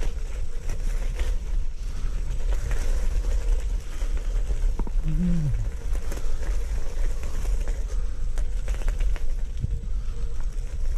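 Wind buffeting the microphone of a camera carried on a moving Xiaomi electric scooter, a steady loud rumble. A short low hum from the rider's voice falls in pitch about five seconds in.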